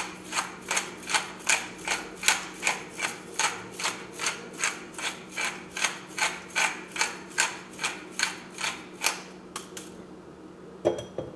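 Pepper mill being twisted by hand, grinding peppercorns in a steady rhythm of about three strokes a second, stopping about nine seconds in. A single knock follows near the end.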